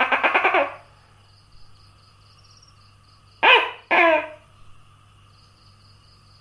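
Tokay gecko calling. A fast rattling run ends just under a second in, then a loud two-syllable 'to-kek' call comes about three and a half seconds in, each syllable falling in pitch. Faint insect chirping runs steadily underneath.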